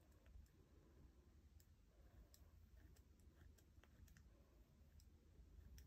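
Near silence, with faint scattered ticks of a multi-colour ballpoint pen writing on a paper planner page.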